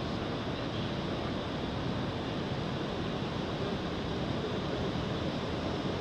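Steady rushing noise, even and unbroken.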